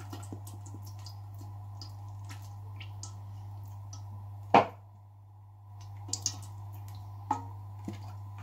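Cooking oil pouring in a thin stream into an aluminium cooking pot already holding oil: a soft trickle with scattered small drips. A single sharp knock about halfway through is the loudest sound.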